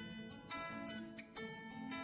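Soft instrumental background music of plucked-string notes, a new note or chord about every half second to second.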